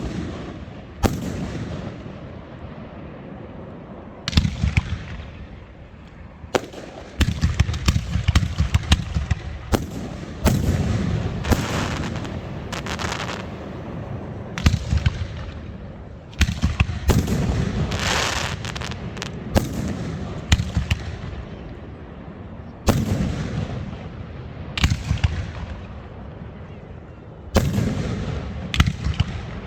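Fireworks exploding: a string of sharp bangs and crackles in clusters, each followed by a rolling echo, with rapid barrages in the middle of the stretch.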